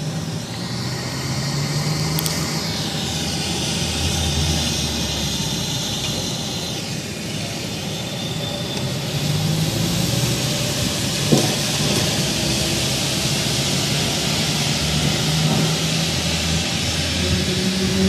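A loud, steady drone with low humming tones, presented as one of the unexplained "strange sounds in the sky". A high whine slides slowly downward over several seconds early on, and there is a single short click about eleven seconds in.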